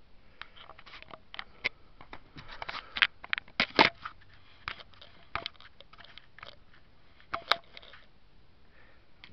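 Handling noise close to the microphone: irregular sharp clicks, taps and short crinkling rustles as the camera and the card materials are moved about, with the loudest knocks about three to four seconds in and again near the end.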